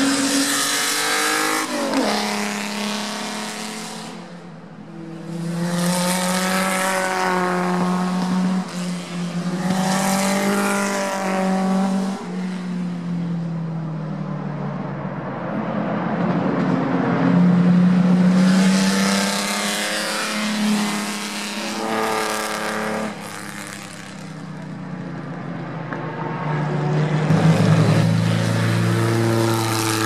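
Historic Grand Prix racing cars passing at speed one after another. Each engine note swells, and its pitch rises and falls as the car accelerates and changes gear.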